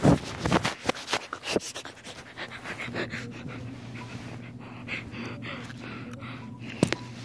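Phone handling noise as it is pushed under a fleece blanket: loud knocks and rubbing in the first couple of seconds, then softer scuffing, over close, rapid panting breaths and a steady low hum.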